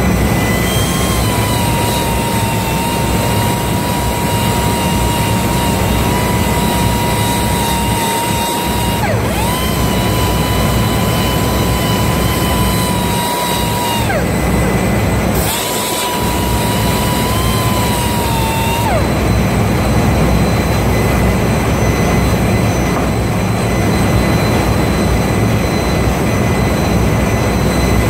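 Handheld power grinder cleaning a ship main engine's steel exhaust valve, with a loud steady grinding hiss and a high motor whine. The whine breaks off briefly twice and drops out about two-thirds of the way through, while the loud hiss carries on.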